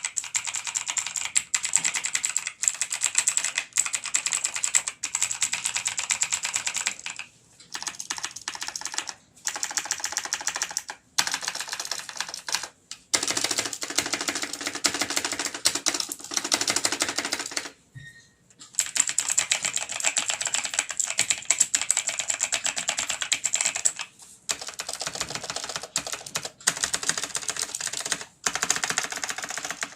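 Fast typing on a TVS Gold mechanical keyboard with Kailh Long Hua Blue clicky switches: rapid runs of sharp key clicks, broken by several brief pauses and a longer one about eighteen seconds in.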